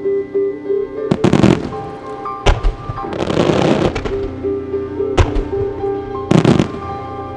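Aerial firework shells bursting over music: sharp bangs at uneven intervals, some in quick clusters, and a spell of dense crackle partway through. The display's recorded music plays under them with held chords.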